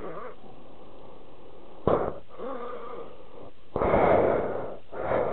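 A man's heavy, strained breathing while hooking down a canvas boat cover: a sharp puff about two seconds in, a short wavering grunt, then two longer loud exhales near the end.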